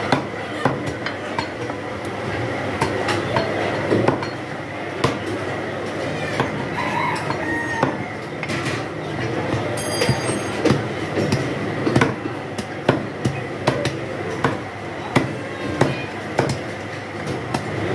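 Butcher's heavy knife chopping goat meat and bone on a wooden chopping block: sharp, irregular chops roughly once a second over a steady background din.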